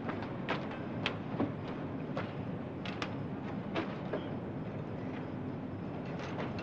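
Wet laundry being handled and hung on a line: scattered light clicks and knocks, irregular, over a steady background hiss.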